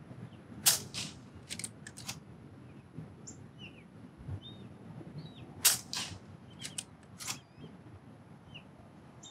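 Two shots from a moderated .22 Brocock Ghost HP PCP air rifle, about five seconds apart, each a sharp crack followed by a few lighter clicks. Birds chirp in the background.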